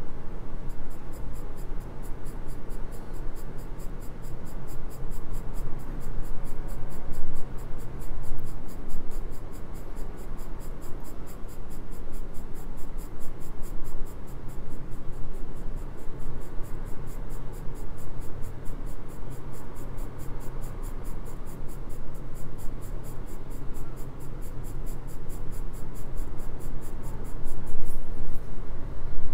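Graphite pencil scratching across drawing paper in repeated shading strokes, rising and falling in loudness with each stroke.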